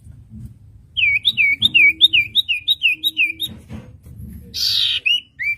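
Common iora (cipoh) singing: a quick run of about a dozen downslurred whistled notes, about five a second. A short harsh rasp follows, then a few more whistled notes near the end.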